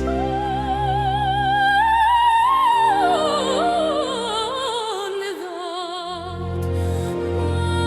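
Slow hymn music: a melody line with strong vibrato holds a note, climbs, then falls through a run of notes over sustained low chords. The chords drop out briefly about two-thirds of the way in, then return.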